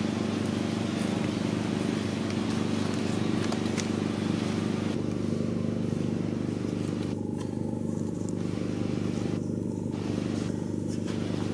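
A steady low mechanical hum, like an engine running, unchanging throughout. The higher hiss over it thins out about five seconds in.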